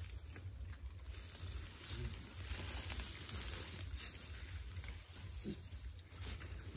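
Rustling and scraping in dry leaf litter as a Komodo dragon pulls at and swallows a goat, with a few small clicks, over a low steady rumble.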